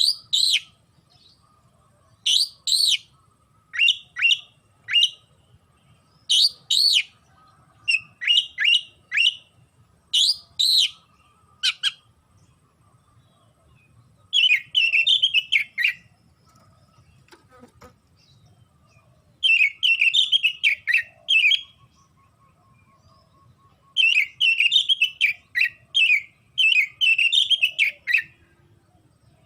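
Oriental magpie-robin (kacer) singing loudly: sharp, downward-slurred whistled notes in quick groups of two to four, then, from about fourteen seconds in, three bursts of rapid chattering phrases lasting two to four seconds each with short pauses between.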